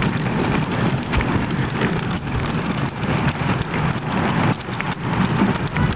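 Hard plastic wheels of a toy wagon rolling over an asphalt path: a steady rolling rattle with small knocks scattered through it.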